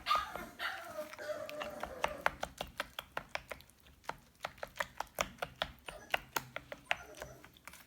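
Rapid series of sharp clicks and taps, a few a second, of a kitchen utensil striking a bowl or cutting board as food is prepared.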